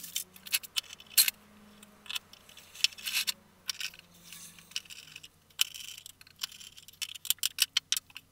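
Hands handling and fitting together acrylic plate parts and O-rings: irregular light clicks, taps and small scrapes, some in quick clusters, over a faint low hum.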